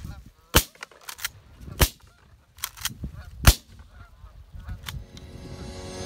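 Three shotgun shots, about a second and a half apart, the last the loudest, fired at geese flying overhead, with goose honks between the shots. Music starts fading in near the end.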